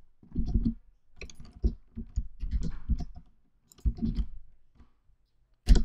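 Computer keyboard keys and mouse buttons clicking in short, irregular clusters of taps as shortcut keys are pressed, with a louder tap near the end.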